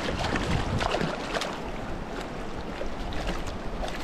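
Mountain stream water rushing and babbling over rocks, a steady splashing hiss with many small irregular gurgles.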